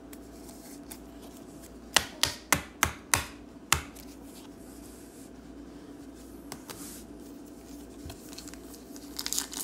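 Hands handling trading cards make about six sharp taps in quick succession around two seconds in. Near the end comes the crinkle of a foil card pack being handled.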